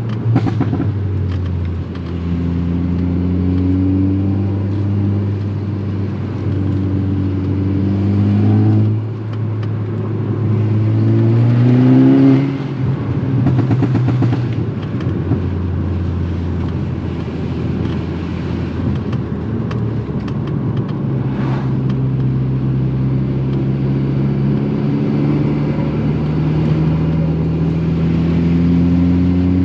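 Modified MK6 Volkswagen Golf R's turbocharged 2.0-litre four-cylinder with a turbo-back exhaust, pulling through the gears. The engine note climbs slowly in pitch, drops at gear changes (sharply about twelve seconds in), then climbs steadily again.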